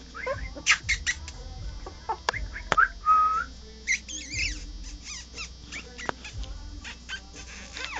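Young puppies whining and squeaking: many short, high-pitched cries that rise and fall, coming in quick succession, with a few sharp clicks among them.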